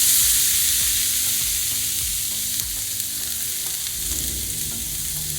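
Chopped green bell peppers sizzling on a hot Blackstone flat-top griddle: a loud, steady frying hiss that eases slightly as it goes on.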